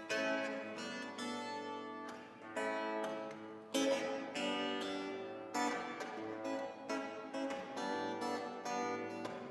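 Acoustic guitar being picked: single notes and chords plucked about once a second, each ringing out and fading, heard through a PA.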